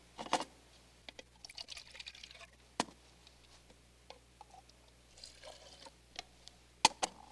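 Liquid poured from a plastic measuring cup into an empty plastic bottle, in two short spells. Light clicks and knocks of plastic bottles and the cup being handled and set down come between the pours, the sharpest near the end.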